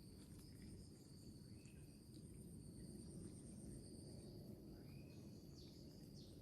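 Faint outdoor ambience of steady high-pitched insect trills; the higher trill stops about four seconds in. A few short high chirps come near the end over a low background hum.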